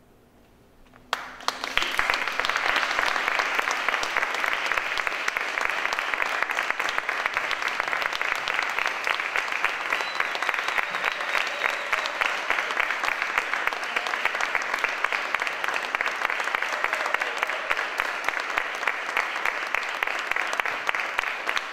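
Near silence, then an audience suddenly breaks into applause about a second in and keeps clapping steadily.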